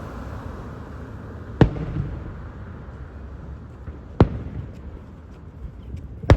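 Fireworks bursting overhead: three sharp bangs about two and a half seconds apart, each trailing off in a low rumble.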